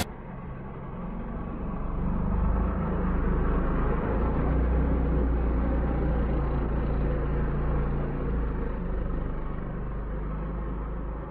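Small engine of a children's mini quad bike running steadily as it is ridden in slides over gravel, getting louder about two seconds in.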